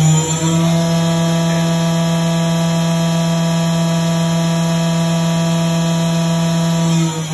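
Samsung MCV50 vertical machining center's spindle running at a steady speed, giving a loud, steady whine over a strong hum. Near the end the pitch starts to shift as the spindle changes speed.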